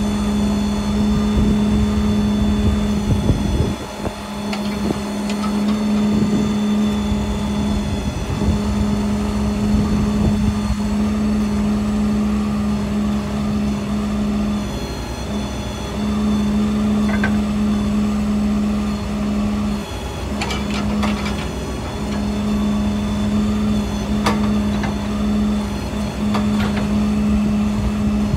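An engine or motor running steadily at one constant pitch. It dips briefly a few times, with a few faint clicks or knocks in the later part.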